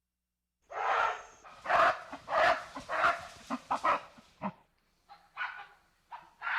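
Mountain gorilla giving a run of short, rough calls, about two a second, starting a moment in after silence. The calls grow softer and further apart near the end.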